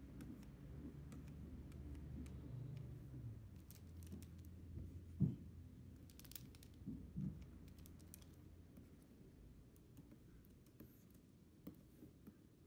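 Faint taps and scratches of a stylus pen working on a pen-display screen, over a low steady hum, with one soft thump about five seconds in and two smaller knocks shortly after.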